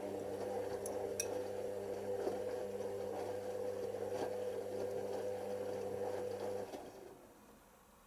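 Hoover Nextra HNL6166 washing machine turning its drum in one tumble during the prewash: a steady motor hum with the wet bedding tumbling inside, and a couple of light clicks about a second in. The motor stops about seven seconds in and the drum comes to rest.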